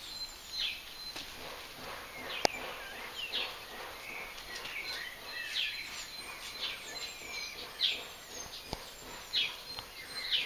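Birds chirping outdoors, short calls falling in pitch, repeated every second or so, with a faint steady high whine under them. A single sharp click about two and a half seconds in.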